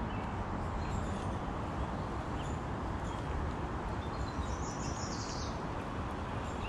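Birds chirping in short high calls, clustered about halfway through, over a steady low outdoor rumble.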